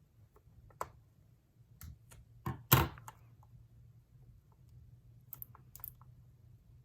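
Scissors snipping packing tape and being handled: a few sharp clicks, with the loudest knock about three seconds in and light ticks near the end.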